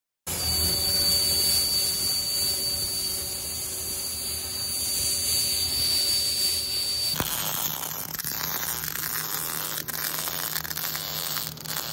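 CNC plasma cutter cutting diamond-plate steel: a steady hiss with a high whistle that stops abruptly about seven seconds in. MIG welding follows, a steady crackle and sputter with scattered sharp pops.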